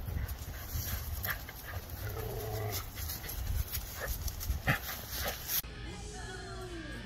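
Two dogs panting and scuffling in dry leaves as they jump and tug at a toy hung from a pole. The sound cuts off abruptly about two-thirds of the way through.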